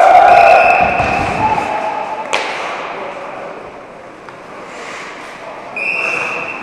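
Loud shouts of ice hockey players echoing in a rink hall, the loudest at the start and another high call near the end, with a single sharp crack of play on the ice about two seconds in.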